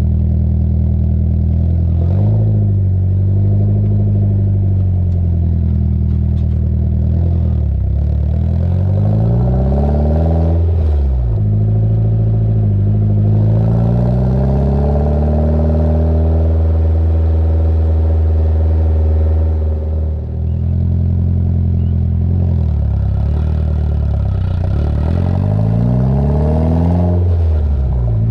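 Nissan S14's four-cylinder engine idling and being revved through a new ARC titanium 3-inch exhaust with two mufflers, the pitch climbing and falling several times, with a quick rev about ten seconds in and longer rises near the end.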